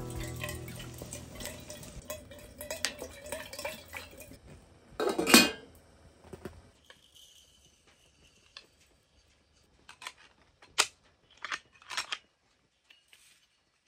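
Background music that fades out about six seconds in, with one loud metallic clank about five seconds in. Then a few short, light metal clicks and clinks as an aluminium coffee-percolator basket is handled.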